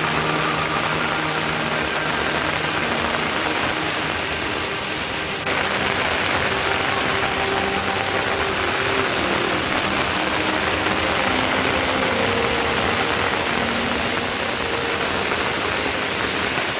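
Steady rain falling and pattering on surfaces, a dense even hiss that steps up abruptly about five seconds in.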